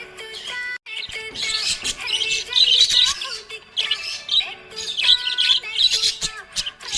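Budgerigar chirping and warbling in quick repeated bursts of high chatter, over steady background music.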